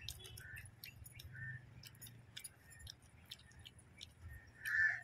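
Fingers tearing apart whole fried fish on a banana leaf: a scatter of small crackling clicks and smacks, with a few short high squeaks, the loudest near the end.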